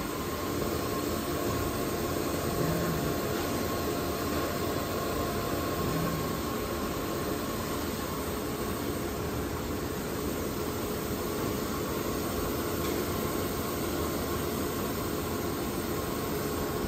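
Disco DFG 850 wafer grinder running: a steady whooshing hum with a faint steady whine.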